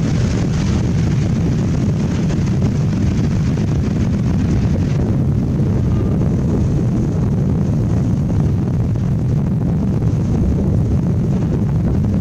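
Steady low rumbling noise of wind buffeting the microphone, unchanging throughout.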